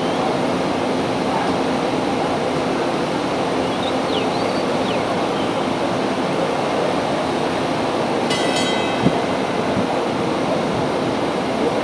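Steady outdoor rushing noise with a faint low hum. About eight seconds in comes a brief high whistle-like tone, followed by a single click.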